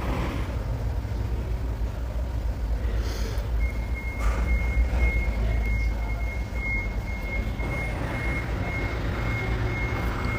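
A high electronic beep repeating about twice a second starts a few seconds in, over a steady low rumble.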